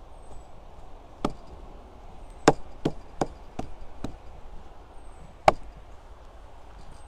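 About seven sharp knocks or taps at uneven intervals, the two loudest about two and a half and five and a half seconds in.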